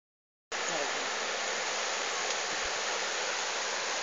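Steady hiss that starts abruptly about half a second in, with faint voices underneath.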